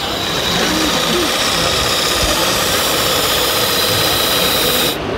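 Two-cylinder model steam engine of a wooden RC boat running on its stand, a steady hissing, mechanical running sound with a constant high whine. It cuts off suddenly near the end.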